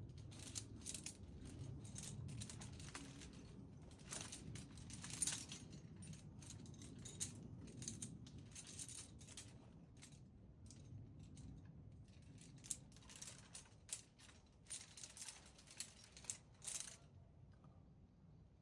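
Faint, irregular clinking and rustling of rock-climbing gear, like a rack of metal protection and carabiners knocking together and rope being handled. It stops a little before the end.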